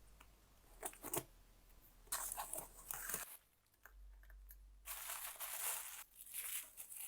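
Plastic parcel packaging being torn open and crinkled by hand, in irregular spells of rustling and tearing with a few sharp crackles.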